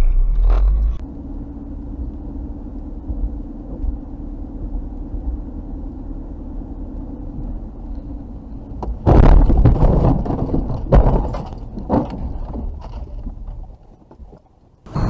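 Steady road and engine noise heard from inside a car on a snowy highway. About nine seconds in, a sudden loud crash breaks in: several bangs and scraping over two or three seconds as the car slides into the roadside guardrail, then the noise dies down.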